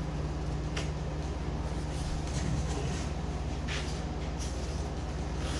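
Air conditioner running with a steady low hum, with a few brief faint scrapes of a razor blade cutting foam.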